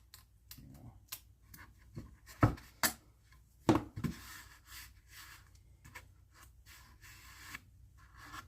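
Masking tape being handled and pressed onto the back of a pine plank: scattered clicks and a few sharper knocks in the first half, then a stretch of soft rubbing and scratching.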